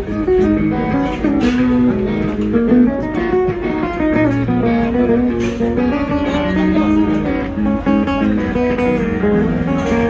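Electric guitar playing a melodic line of sustained, changing notes, loud through the stage sound system during a soundcheck.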